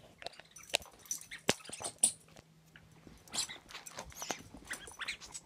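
Small dog tugging and mouthing a toy held in a person's hand: scattered clicks, rustles and bites.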